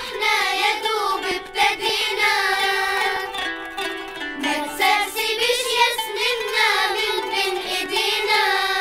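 Children's choir singing an Arabic song together, with instrumental accompaniment underneath.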